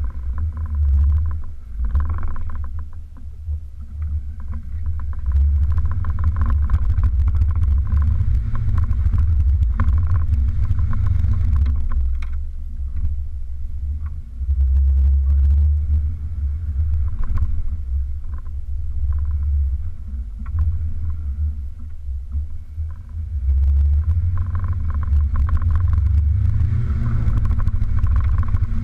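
Toyota 4x4's engine running low as it drives over a rough, rutted mud trail, getting louder and quieter by turns and louder again near the end, with scattered knocks and rattles from the body and suspension jolting over the ruts.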